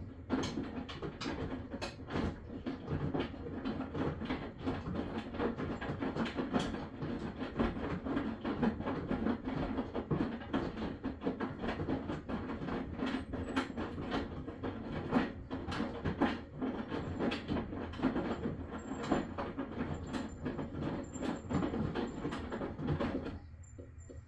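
Maytag washing machine running: a steady low drone full of irregular clicking and rattling, which stops abruptly near the end.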